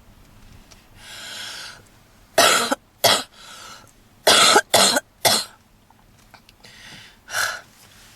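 A woman's heavy smoker's cough. A long breath comes about a second in, then two hard coughs, then three in quick succession, and one more near the end.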